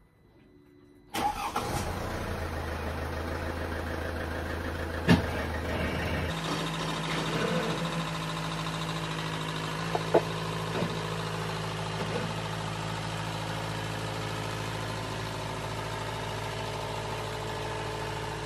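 Mercedes C200 CDI's 2.1-litre four-cylinder diesel engine starting about a second in and then idling steadily. Its note changes abruptly about six seconds in, and there are a few sharp clicks.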